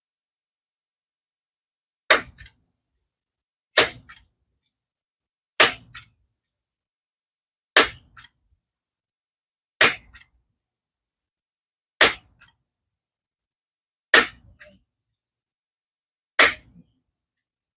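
Multi-pump .22 air rifle (a Crosman 362) being pumped up: eight sharp clacks of the pump lever snapping shut, about two seconds apart, each followed by a lighter click, building air pressure for the shot.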